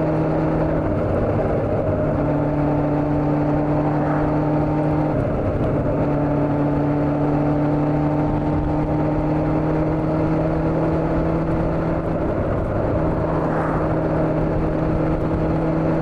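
Honda CB400 motorcycle engine running at a steady cruise, with road and wind noise around it. Its pitch breaks briefly about five seconds in, then climbs slowly.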